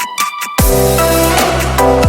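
Background electronic dubstep-style music: a short sparse break, then about half a second in a heavy bass line and beat come in.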